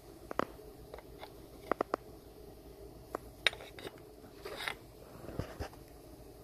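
Light metallic clicks and taps at irregular intervals, about a dozen in all, from tools or metal parts being handled against the engine's cylinder head.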